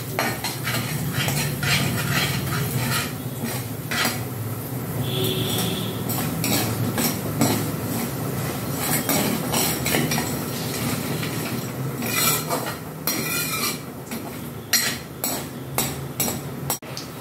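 Metal ladle scraping and knocking against the sides of a metal kadhai in quick, uneven strokes, stirring cumin, mustard seeds and dried red chillies as they fry in hot oil, with a light sizzle underneath.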